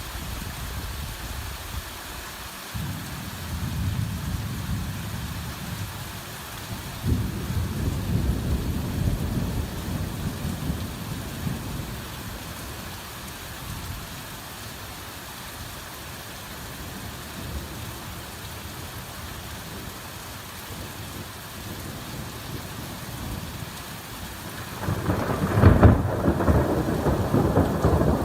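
Heavy rain falling steadily, with rolls of thunder: low rumbles about 3 and 7 seconds in, and a louder, closer thunderclap near the end.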